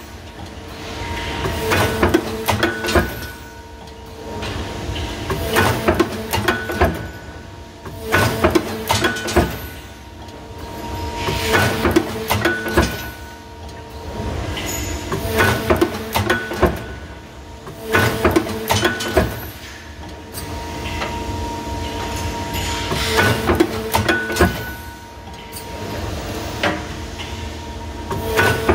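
APS RPS-504 plate punch line at work, its punch heads driving holes through steel plate in quick clusters of sharp strikes every few seconds. Between the clusters, a steady machine hum runs on while the plate is fed to the next position.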